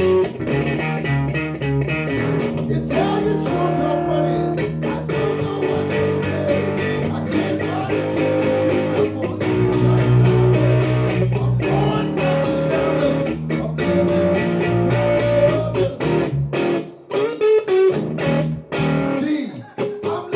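Live blues-rock duo of electric guitar and electric bass playing an instrumental passage. For the last few seconds the bass drops out, leaving the guitar playing choppy phrases with short breaks.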